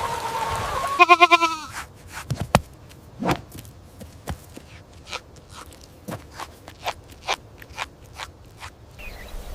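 A goat gives one short, loud, quavering bleat about a second in, followed by scattered faint clicks and snaps.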